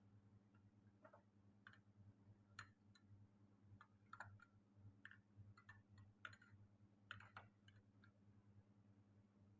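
Near silence: a steady low electrical hum with faint, irregular small clicks and ticks scattered throughout.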